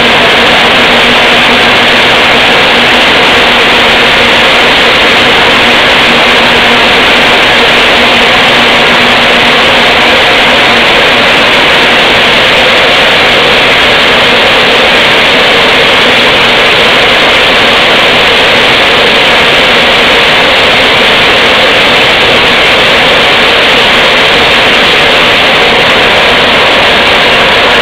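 Maize flour mill machinery running: a loud, steady, unbroken noise that does not change.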